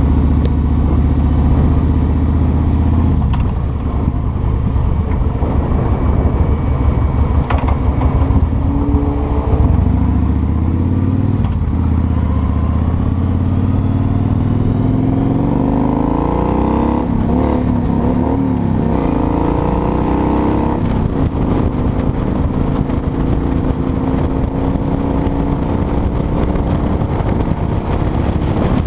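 Kawasaki Vulcan 2000's 2-litre V-twin engine running under way, its pitch climbing several times as the bike accelerates.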